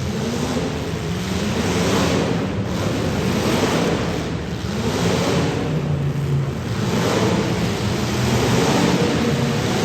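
Demolition derby cars' engines running and revving, several at once, rising and falling in pitch over a steady loud rushing noise.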